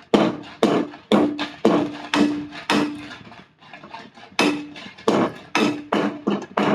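A metal utensil repeatedly knocking against a metal pan while stirring dried red chillies roasting on the stove, about two strikes a second, each with a short metallic ring. The strikes thin out briefly about three seconds in.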